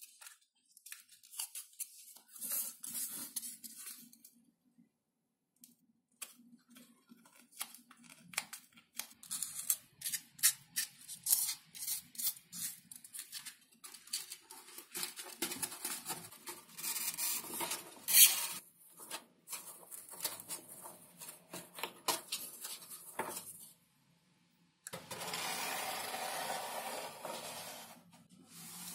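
Foam pieces and thin plywood handled and fitted by hand: foam rubbing and scraping, with many small clicks and taps and one sharp knock about 18 seconds in. Near the end a steady hiss takes over.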